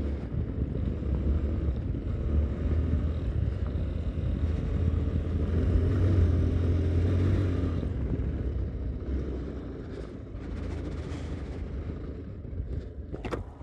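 Yamaha Teneré 250's single-cylinder four-stroke engine running steadily as the motorcycle rides along a dirt road. It is loudest a little past the middle, then eases off over the last few seconds.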